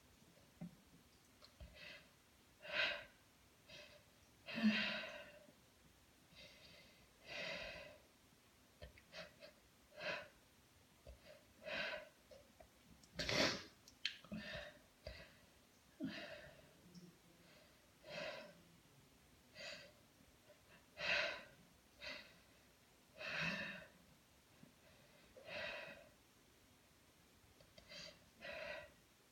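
A woman sniffling and taking sharp, noisy breaths about every two seconds, the run-up of a sneezing fit, with one louder, sharper burst about halfway through.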